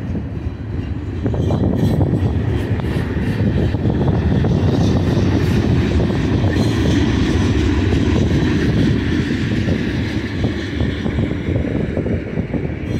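Freight cars of a passing manifest train, mostly loaded tank cars, rolling by on the main line: a steady, loud rumble and rattle of steel wheels on rail.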